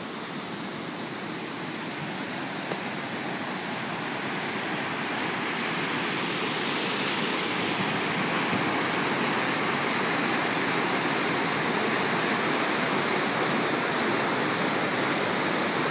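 Stream in flood after hurricane rain, brown water rushing and pouring over a low spillway in a steady rush of white water. It grows louder over the first half, then holds steady.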